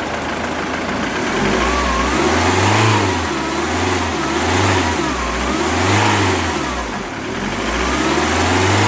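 Ford Mondeo's 2.0 TDCi four-cylinder common-rail diesel engine revved from idle several times, the pitch rising and falling slowly with each blip of the throttle. It runs free of injector knock, the knock having been cured by replacing the faulty injector.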